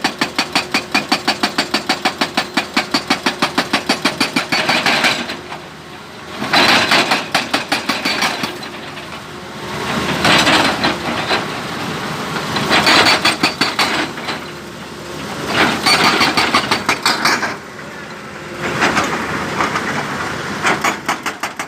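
Excavator-mounted hydraulic breaker hammering a stone boulder: rapid blows at about eight a second for the first five seconds, then in bursts of one to two seconds with the excavator's engine running between them.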